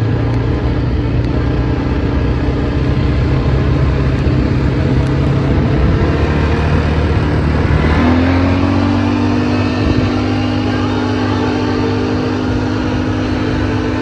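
ATV engine running steadily while riding along a road, over a constant rush of wind and road noise. About halfway through, the engine note shifts suddenly to a new steady pitch.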